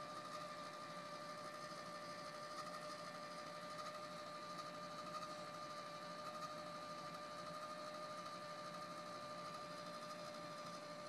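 A small electric motor whining steadily with an even pitch, faint and unchanging.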